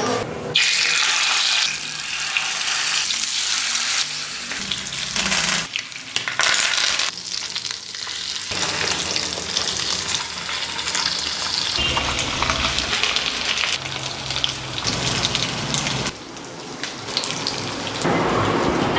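Fish frying in hot oil, sizzling steadily, with several abrupt jumps in loudness.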